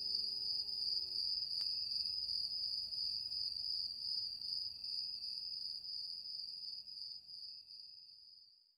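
Crickets chirring steadily as a night-time ambience, fading out near the end. A held music chord dies away about a second in.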